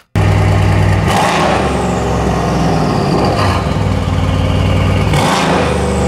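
2018 Mercedes-AMG C63 S coupe's twin-turbo V8, fitted with aftermarket downpipes and on its previous tune, running loud at idle and revved twice, about a second in and about five seconds in, each rev followed by a high whine falling away. There are no crackles after the revs.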